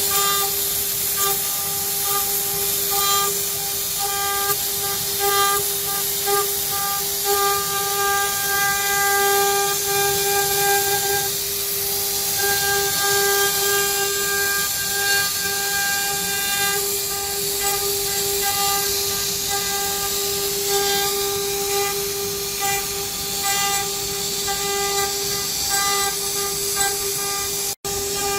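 CNC router spindle running while milling aluminium: a steady whine over a loud hiss, cutting out for an instant near the end.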